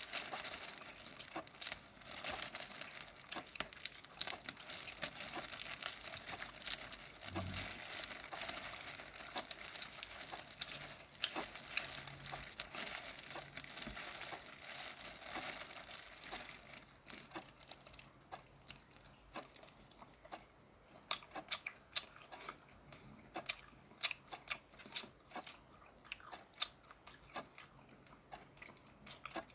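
Steamed shrimp being peeled and eaten close to the microphone. For about the first half, dense crackling and tearing of shell; after that, sparser crunching and chewing clicks.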